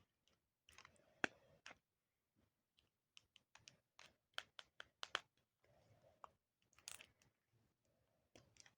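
Faint, scattered clicks and crinkles of a fingernail picking at and tearing the thin plastic wrapper on a small toy pack.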